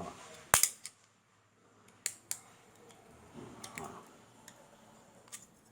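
Knife point prying at the small metal tabs of a fan motor's bushing retainer cap. One sharp click about half a second in, two more about two seconds in, then a few fainter clicks.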